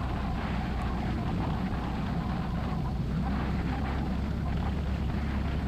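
1969 Cessna 172's four-cylinder Lycoming engine running steadily at low taxi power: an even, unbroken drone.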